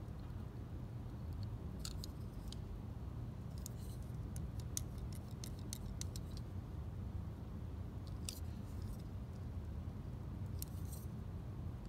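Small scrapes and ticks of a snap-off craft knife blade and a needle tool working the face of a polymer clay head, coming in short clusters over a low steady hum.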